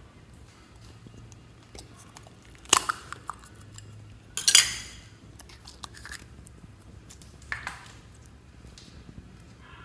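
Sharp plastic clacks as a ladybug-shaped plastic slime container is handled and pried open. The loudest comes about four and a half seconds in, another about a second and a half earlier, and a softer one near the end.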